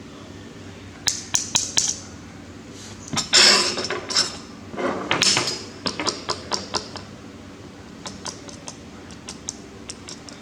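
Small hard parts being handled and knocked together, giving quick clicks and taps, with two louder scraping rushes in the middle, over a steady low hum.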